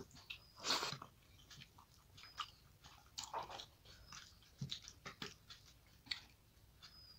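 Close-up eating sounds: fingers breaking apart a cooked fish head and mixing it with rice on a ceramic plate, along with chewing, heard as irregular short wet smacks and clicks, the loudest about a second in. A faint short high peep comes several times.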